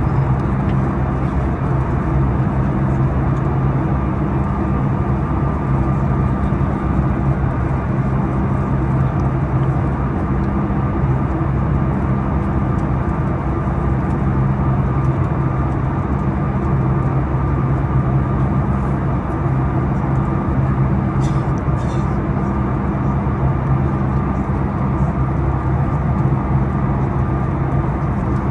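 Steady cabin drone of a Boeing 737 MAX 9 in cruise: the hum of its CFM LEAP-1B engines mixed with the rush of air past the fuselage.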